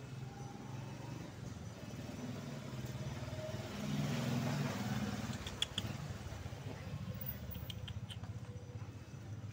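Motor vehicle engine running steadily, swelling as it passes about four seconds in. A few light clicks come near the six- and eight-second marks.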